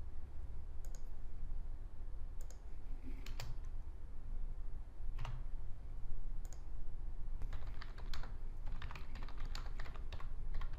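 A few single clicks spaced out, then typing on a computer keyboard in quick runs of keystrokes from past the middle on.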